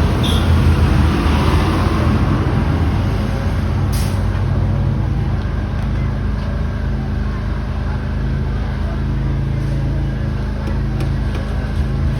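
Motor vehicle engine running steadily amid road traffic noise, with a brief sharp click about four seconds in.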